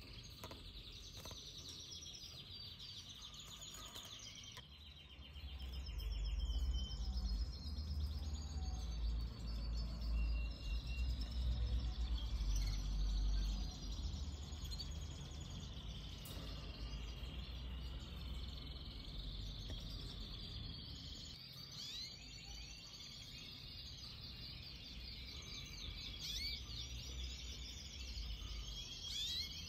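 Canaries chirping, many short calls and trills overlapping throughout. A low rumble comes in about five seconds in and fades out at around fourteen seconds.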